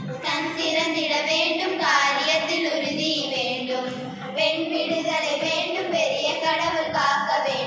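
A group of schoolgirls singing a Tamil song together, in phrases of held notes.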